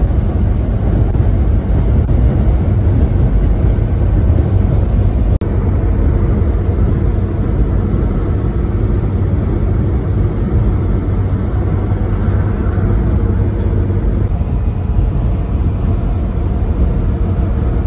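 Fire engine cab at cruising speed: the steady low rumble of its diesel engine mixed with road and wind noise, with a brief dropout about five seconds in.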